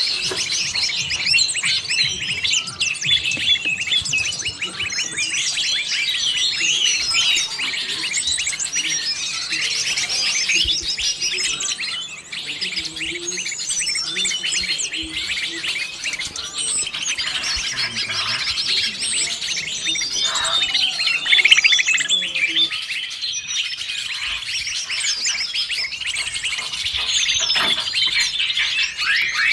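Dense chorus of many small birds chirping and trilling at once, a lure recording that mixes greater green leafbird (cucak ijo) calls with other species.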